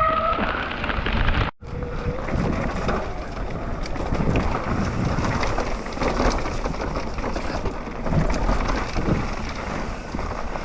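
Wind buffeting the camera microphone on a mountain bike riding a trail in the rain, with the rush of the ride and scattered rattles and clicks from the bike over rough ground. The sound cuts out for a moment about a second and a half in.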